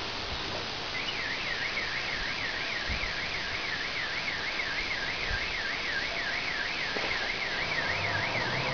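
Car alarm siren starting about a second in, warbling up and down about three times a second, over a steady hiss of background noise.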